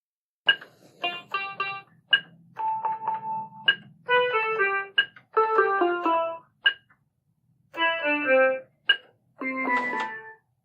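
First Act Discovery toy keyboard sounding a string of short electronic notes and quick falling runs as its keys and buttons are tested one after another. The notes sounding show that the repaired ribbon cable works.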